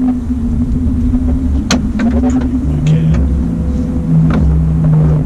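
Steady low hum and rumble of a boat motor running, with a second, lower steady tone joining about three seconds in. A single sharp knock comes just under two seconds in.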